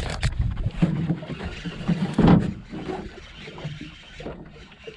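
Irregular knocks and thuds in a small fishing boat as a hooked trout is played in, the loudest a heavy thump about two seconds in.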